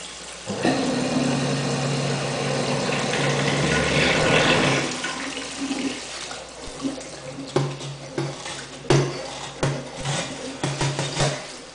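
Kitchen tap running into a stainless steel sink while a stem brush is scrubbed through a metal hookah stem. The water rushes loudly for the first few seconds, then settles, with scattered short knocks and clinks of the stem and brush against the sink.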